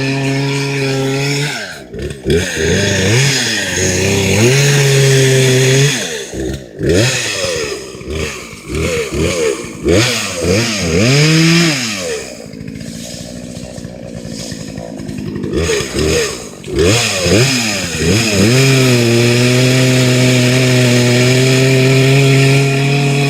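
Gasoline chainsaw engine running, its throttle blipped again and again so the pitch swoops up and down, dropping to a lower, quieter idle about halfway through, then held at a steady, higher speed near the end.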